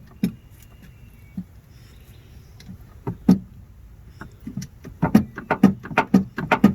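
Hand crimping tool being worked to crimp a copper lug onto heavy welding cable: a few separate sharp clicks, then from about five seconds a fast run of clicks as the tool is worked steadily.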